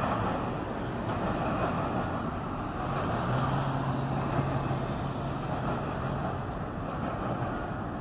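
Freight train rolling past a grade crossing, a steady rumble of railcars with wind on the microphone. A steady low hum joins in about three seconds in and stops a few seconds later.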